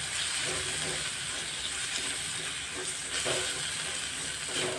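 Chopped tomato and onion masala sizzling in hot oil in a pan, with a steady frying hiss, as a wooden spatula stirs it with a few light scrapes against the pan.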